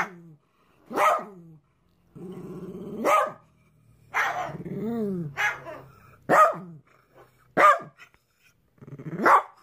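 A dog barking in short, separate barks, about eight of them at uneven intervals, with a lower drawn-out growl between them.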